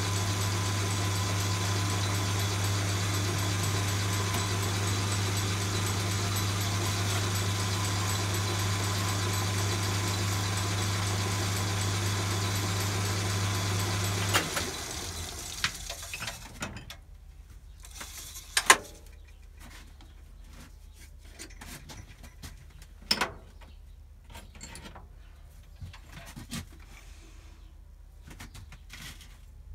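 Milling machine motor running with a steady hum, switched off about halfway through and running down over a couple of seconds. After that come scattered sharp metallic clicks and knocks of tools being handled, two of them louder than the rest.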